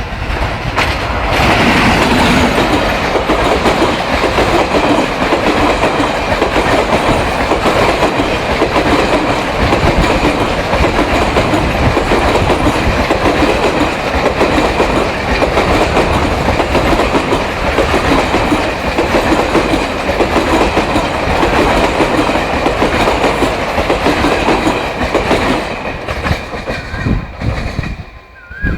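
An express passenger train hauled by a WDG-3A diesel locomotive runs past at speed, its wheels clattering steadily over the rail joints. The sound grows loud about a second in and fades away near the end.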